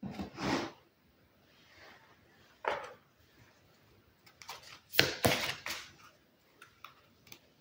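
Tarot card decks being slid and set down on a wooden tabletop: a couple of soft scrapes, then a cluster of taps and scuffs about five seconds in.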